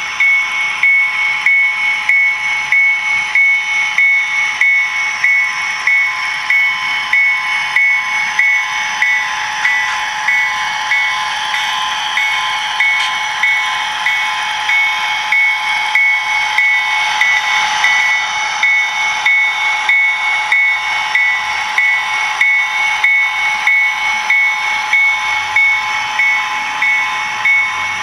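Digital diesel locomotive sound from a Soundtraxx Tsunami sound decoder in a model locomotive, played through its small onboard speaker. A steady engine sound runs under a high tone that pulses evenly about one and a half times a second.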